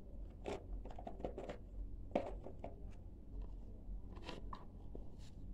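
A person chewing dry, crunchy clay: a string of short crackling crunches at irregular intervals, the sharpest a little after two seconds in.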